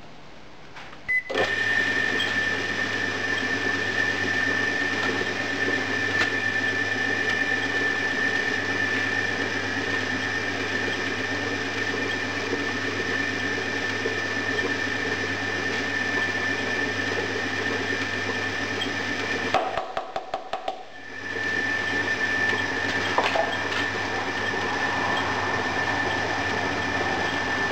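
Homemade foundry sand mixer starting up about a second in and running steadily, its electric motor and drive giving a low hum and a high steady whine as the pan turns green sand under the roller and plough, with coal dust being mixed in. Near the two-thirds mark it stops for about a second and a half, with a few short clicks, then runs up again.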